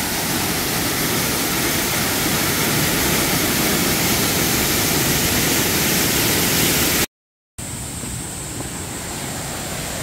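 Waterfall pouring over rock ledges and crashing onto the rocks below: a loud, steady rush of falling water. About seven seconds in the sound cuts out completely for half a second, then returns slightly quieter.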